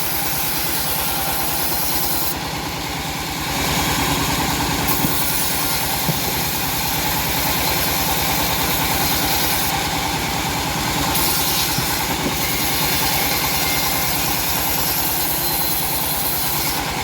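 Engine powering a homemade bandsaw sawmill, running steadily with an even pulse under the hiss of the saw. It grows a little louder about three and a half seconds in.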